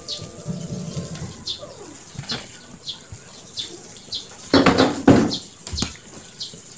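A spoon stirring a pot of chicken soup full of vegetables, with a loud clatter against the pot about four and a half seconds in. A small bird chirps over and over, about once every two thirds of a second.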